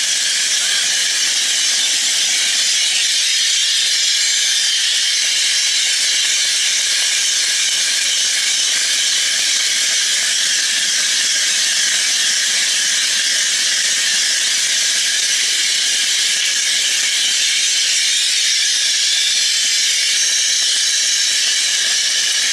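Steady, loud hiss of a high-pressure spray nozzle at work, unbroken throughout.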